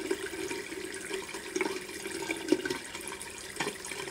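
Bathroom tap running steadily into a sink, with a few short splashes or knocks.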